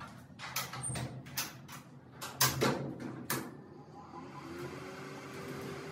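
A screen-printing exposure unit's lid being lowered and shut: a run of knocks and clicks as the frame and lid seat and the latches close. About four and a half seconds in, the unit's machinery starts with a steady hum as the exposure begins.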